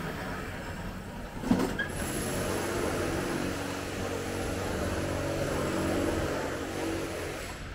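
A road vehicle passing close by, its noise building for a few seconds and fading near the end, with a sharp knock about one and a half seconds in.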